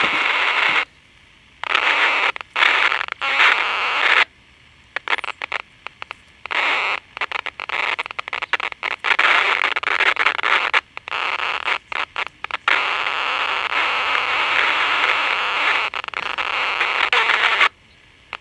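Vintage pocket transistor radio putting out loud hiss and crackle through its speaker, cutting in and out abruptly with short dropouts; an intermittent fault that the repairer suspects is an open electrolytic capacitor.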